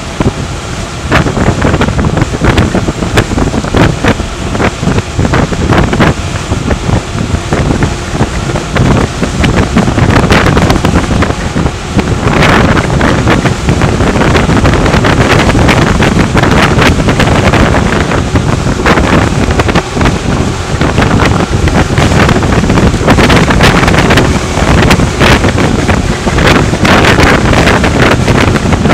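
Loud, gusty wind buffeting the microphone of a camera riding on a mountain bike speeding downhill, with rattling of the bike over the road surface.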